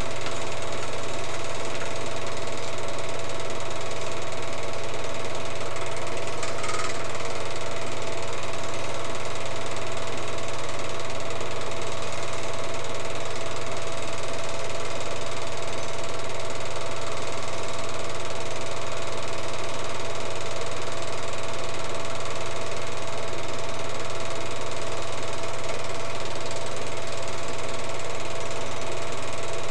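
Film projector running steadily, a constant mechanical hum that does not change.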